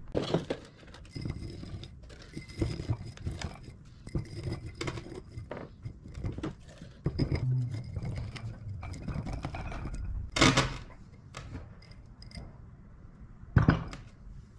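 Copper scrap being packed by hand into a small crucible: copper wire rustling and copper bars clinking and knocking against the crucible, with two louder knocks in the last third.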